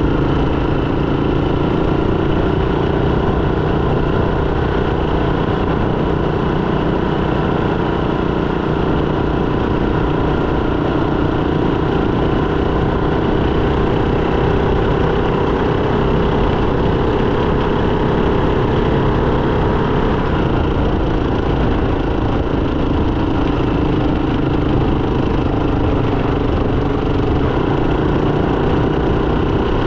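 Motorcycle engine running steadily while riding, its pitch holding nearly constant with only slight drifts.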